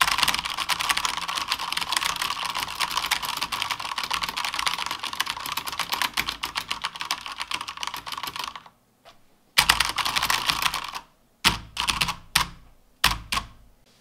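ASUS ROG GK2000 Horus RGB mechanical keyboard with Cherry MX RGB Silent switches, typed on in a fast, hard frenzy for about eight seconds. After a short pause comes another brief flurry, then a few separate heavy key slams near the end.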